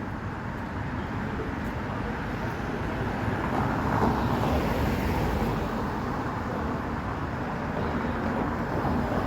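Road traffic noise from passing cars, with one passing louder about four seconds in.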